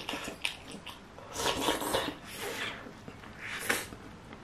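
Someone slurping soup from a spoon in a few noisy sips, with small clicks of the spoon against a ceramic bowl.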